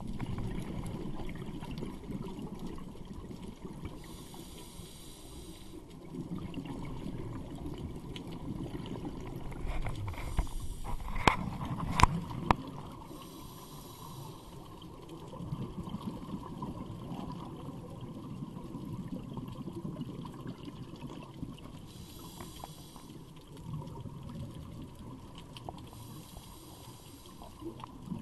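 Underwater sound of scuba diving: open-circuit regulator breathing, with the low bubbling rumble of exhaled bubbles swelling and fading every few seconds between fainter hissing inhalations. A few sharp knocks come about eleven to twelve seconds in.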